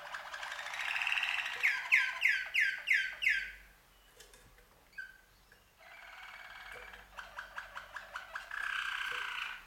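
Domestic canaries singing: a run of about seven clear, downward-sweeping whistled notes, a quieter pause about four seconds in, then rapid repeated notes running into a sustained trill near the end.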